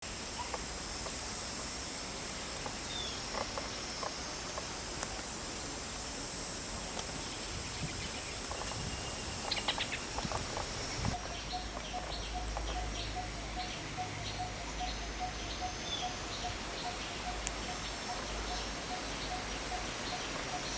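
Outdoor birdsong: scattered short bird chirps over a steady high insect hiss. About halfway the sound changes abruptly, and a bird's low single note repeats evenly, two or three times a second, with other chirps around it.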